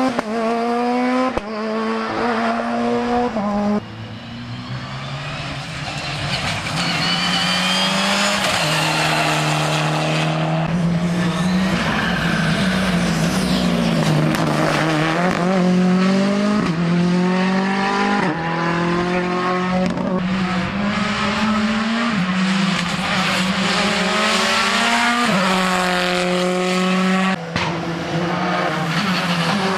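Rally car engines revving hard through the gears, the pitch climbing and then dropping at each gear change, over and over.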